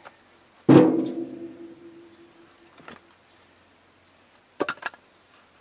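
Pieces of split mixed-hardwood firewood tossed onto a woodpile: one loud, ringing clunk of wood on wood about a second in, then a few quick lighter knocks near the end.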